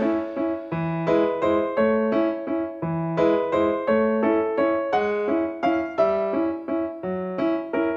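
Background music: a keyboard playing a steady run of separate piano-like notes.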